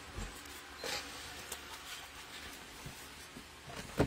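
Soft rustles and light taps of trading cards being handled and flipped through, with a sharper tap near the end.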